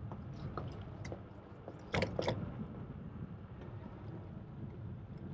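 Bicycle ride on a paved path: a steady low rumble with scattered light clicks and rattles, and two sharper knocks close together about two seconds in.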